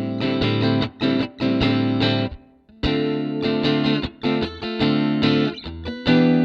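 Electric guitar played in chords through the Fender Bassman amp model of a Zoom G2X Four multi-effects processor, with the gain at 30–40 for a mild overdrive. The chords come in short rhythmic strokes, with a brief pause about two and a half seconds in.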